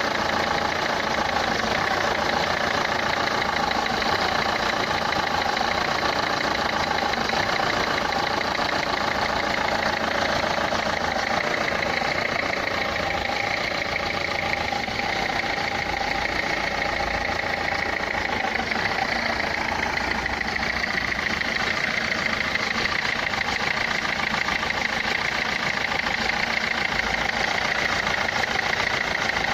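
Renault Clio 3's 1.5 dCi four-cylinder turbo-diesel engine idling steadily with a diesel clatter, a noise that the title places in the injectors.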